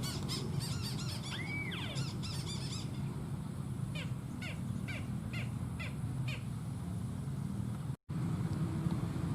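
Wild birds calling in a marsh: repeated short arched and falling chirps and whistled notes, several overlapping, over a steady low outdoor background. The sound cuts out for an instant about eight seconds in, and the calls go on after.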